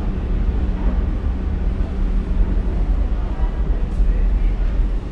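Athens Metro train rumbling at the station platform: a steady low rumble with a faint hum over it.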